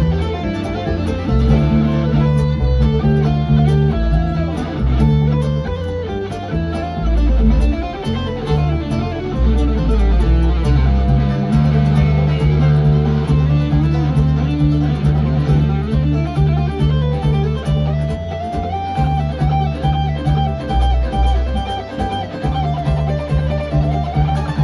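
Bluegrass band playing an instrumental jam: picked guitar lines over steady bass notes, with fiddle.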